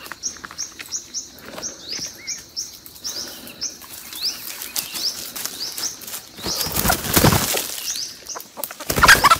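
A wild junglefowl flapping its wings hard among dry leaves, in a loud bout about two-thirds of the way in and again near the end, as it struggles in a wire snare. In the first half a bird's short, high, upward chirps repeat several times a second.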